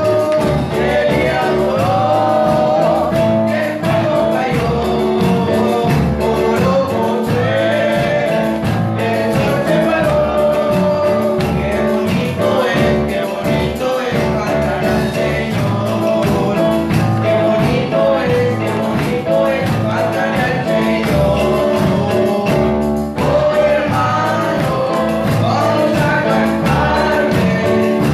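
Live gospel worship music: singing over an electronic keyboard, with a steady beat.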